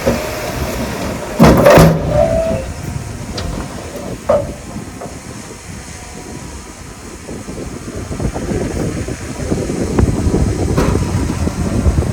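Heavy earthmoving machinery at work: a loud sudden clash about a second and a half in, with a brief squeal after it, and a sharper knock around four seconds. A low machine rumble builds toward the end.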